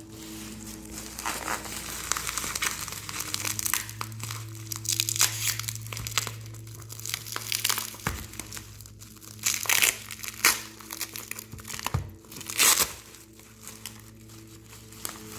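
Plastic packaging being handled, crinkled and crumpled while a parcel is unwrapped, in irregular rustles with a few louder crackles near the end.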